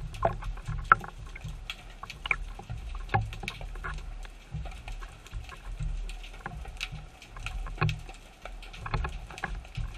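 Underwater sound through a camera housing just below the sea surface: irregular low sloshing and rumbling of moving water, with many scattered sharp clicks and crackles.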